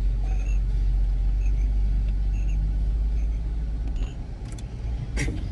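Low, steady car engine and road rumble heard from inside the cabin as the car moves off, easing a little about four seconds in.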